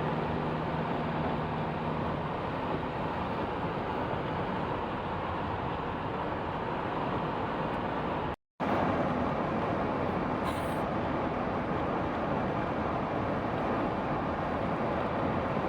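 Steady road noise of a car being driven, tyre noise with the engine humming underneath. The sound cuts out completely for a split second a little past halfway.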